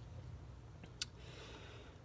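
Trading cards being handled and shuffled in the hands: a single light click about a second in, followed by a faint sliding hiss as a card is moved through the stack.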